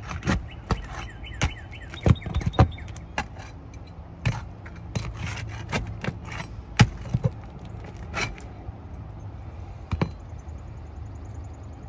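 Roof snake shingle-removal tool prying up three-tab asphalt shingles and working roofing nails loose: a run of sharp, irregular knocks and cracks with scraping in between, about a dozen strokes.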